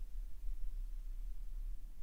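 A quiet pause with no speech: only a faint steady low hum and light hiss of the recording's background.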